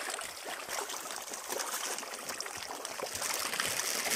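Many fish splashing and slapping at a pond's surface in a dense, steady patter as they feed on thrown food.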